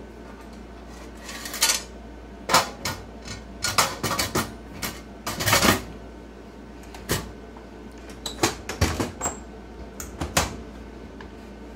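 A run of irregular sharp clanks and knocks as parts, including the front reel glass in its frame, are fitted back onto an IGT S+ slot machine cabinet, with a short lull midway.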